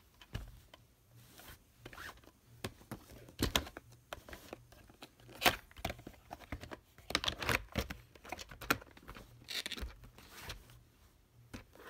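Plastic VHS clamshell cases being handled on a bedspread: irregular clicks, taps and scraping rustles as a case is picked up, turned and set down.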